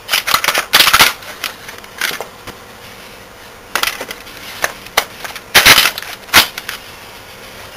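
Plastic toner supply pot of a Xerox A-Color 935 colour copier being twisted and pulled in its housing: a run of irregular scraping, rattling and clicking noises, loudest about six seconds in, over a faint steady machine hum.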